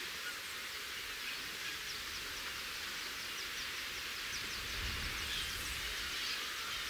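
Steady outdoor hiss with a rapid stream of short, high bird chirps starting about two seconds in. A brief low rumble, like wind on the microphone, comes just past the middle.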